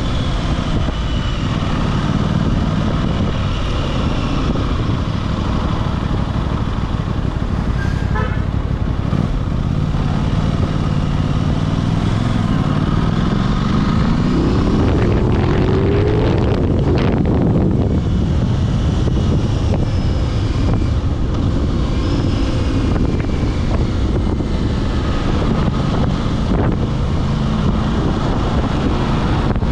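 Aprilia RS660 parallel-twin engine running while the bike is under way, with wind and road noise. About halfway through, the engine revs up, its pitch rising steadily for a few seconds before it levels off again.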